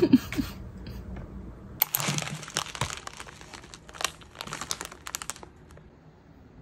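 Packaging being handled and crinkled: a run of dry crackles and rustles starting about two seconds in and stopping a little over a second before the end.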